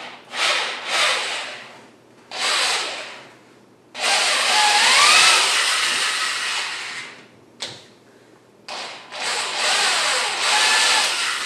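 Hand drill running in several separate bursts, a stubby pilot bit boring into a wooden propeller hub. One longer run in the middle has a pitch that rises and falls back.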